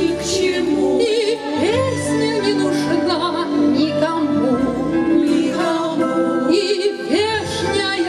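A women's vocal ensemble singing in chorus over a steady instrumental accompaniment, the voices with a wide vibrato.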